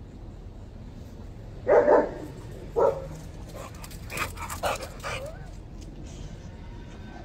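A dog barks twice loudly, then gives several quieter, shorter yips and whines.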